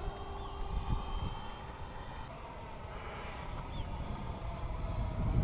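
Electric ducted fan of a Freewing F-86 Sabre RC model jet (80 mm EDF) running in flight: a steady airy whine with a faint tone on top, growing louder near the end.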